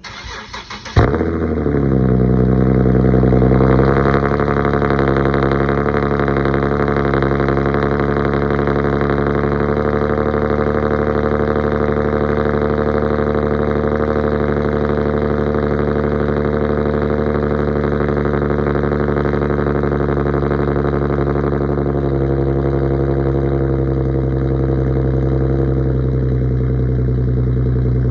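2008 Infiniti G37 coupe's 3.7-litre V6 cold start through an aftermarket exhaust (ISR Y-pipe, resonated test pipes, Tomei exhaust): the starter cranks for about a second, the engine catches with a brief flare of revs, then settles into a steady fast cold idle that drops slightly near the end. The owner says the exhaust has a slight leak.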